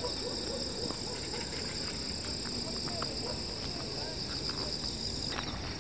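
A steady chorus of insects shrilling in two high, even bands, with faint soft calls underneath. The high bands shift slightly about five seconds in.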